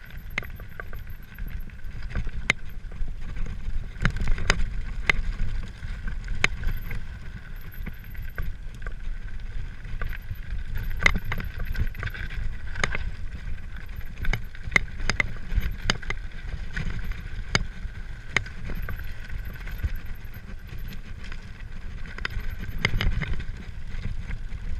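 Mountain bike rolling downhill over loose gravel, heard from a handlebar-mounted camera: tyres crunching over stones with frequent sharp clicks and rattles from the bike over a steady low rumble of wind and ground vibration.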